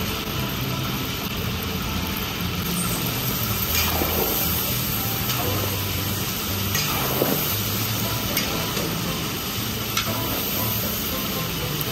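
Oxtail pieces sizzling steadily as they fry in a large pot, with a few faint pops.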